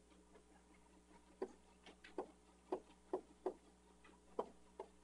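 A series of about eight light, sharp taps, irregularly spaced, starting about a second and a half in and running until near the end.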